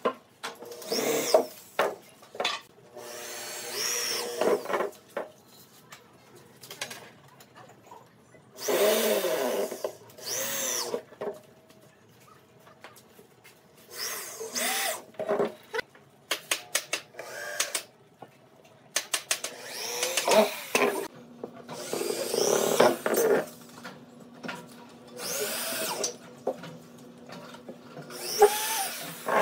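Corded electric drill driving long wood screws into pine boards in a series of short bursts, the motor whine rising as it spins up and falling as it winds down each time. Short clicks and knocks come between the bursts.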